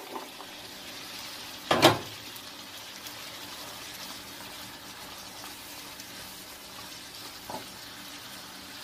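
Chopped green beans and diced green bell pepper sizzling steadily in oil in a frying pan while being stirred. A loud knock comes about two seconds in, and a smaller one near the end.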